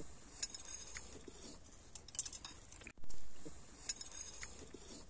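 Spoons and cutlery clinking lightly against soup bowls and plates, a scatter of small, thin clicks.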